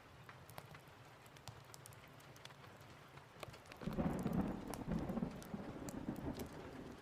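Steady rain with scattered sharp crackles and ticks, and a roll of thunder that breaks in about four seconds in and rumbles away, fading.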